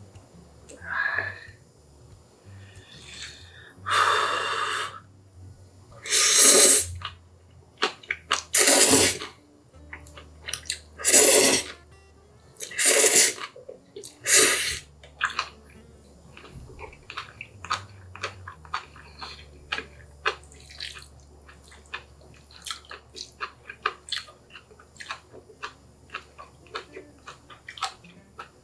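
Close-up eating sounds: about six loud slurps of Chapagetti black-bean noodles and green onion kimchi, then wet, rapid chewing with many small clicks and smacks.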